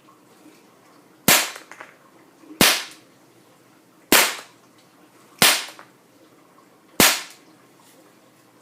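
Daisy Model 200 CO2 BB pistol firing five semi-automatic shots, each a sharp pop of released gas with a short ringing tail, spaced roughly one and a half seconds apart.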